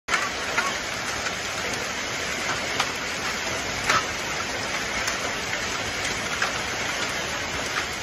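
Hailstorm: a steady hiss of hail and rain coming down, with sharp clicks of single hailstones striking hard surfaces every second or so.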